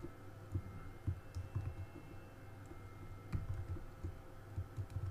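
Typing on a computer keyboard: irregular keystrokes tapping at an uneven pace, with a sharper key strike a little past halfway.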